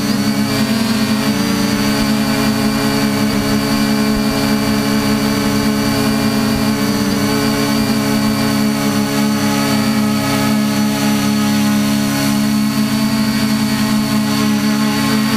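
A small drone's motors and propellers running steadily, heard from its onboard camera, with a hum whose pitch wavers slightly now and then.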